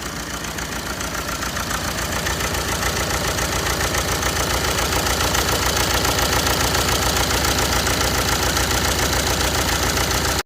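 BMW 320d four-cylinder diesel engine idling with a misfire, a steady fast uneven chug that grows gradually louder. The mechanic puts the misfire down to a carbon-clogged intake manifold and swirl flaps.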